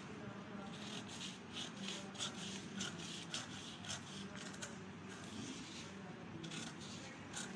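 Large tailor's shears cutting through a sheet of pattern paper: a run of short snips, about three a second, with a brief pause past the middle.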